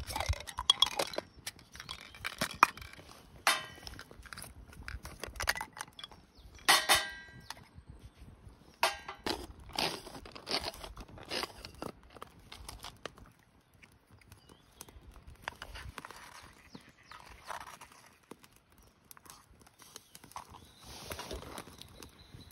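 Objects being handled and set down: scattered knocks and clatter, busier in the first half and sparser after, with one ringing metallic clang about seven seconds in.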